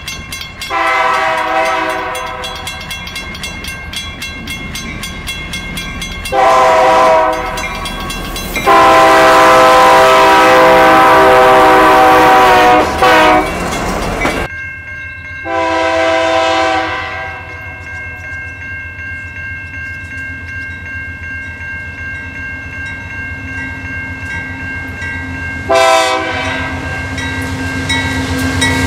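Diesel freight locomotive air horns sounding a series of blasts as the trains approach and pass: two long blasts, then a longer one of about four seconds, and later another long blast and a short one near the end. Underneath runs the steady rumble and wheel clatter of the passing freight train.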